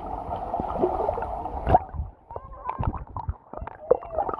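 Muffled underwater sound of a swimming pool: a steady hiss and gurgle of water, then a sharp knock a little under two seconds in, after which come scattered bubble pops and clicks.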